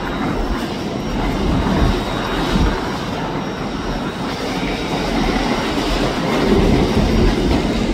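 LNER Azuma passenger train rolling slowly past close by, a steady rumble of wheels on the rails.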